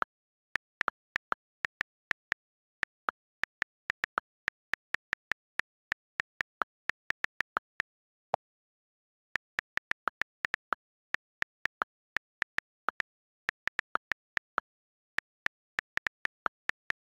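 iPad on-screen keyboard key clicks as a sentence is typed, several short ticks a second in an uneven typing rhythm. Around the middle the typing pauses for about two seconds, broken by one lower-pitched click.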